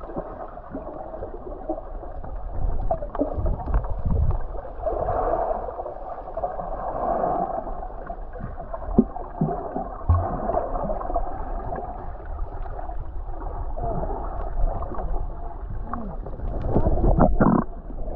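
Muffled gurgling and sloshing water with a low rumble and scattered knocks.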